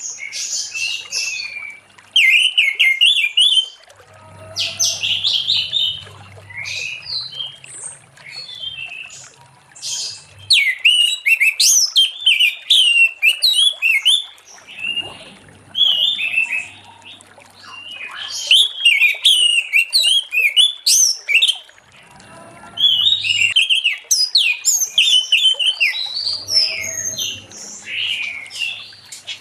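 Orange-headed thrush singing a long, varied song of rapid whistled and chattering phrases, broken by short pauses.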